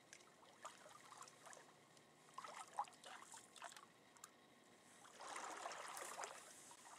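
Faint trickling and splashing of water at the lake edge, with scattered small clicks and rustles, thickening into a denser splashing hiss for about a second and a half near the end.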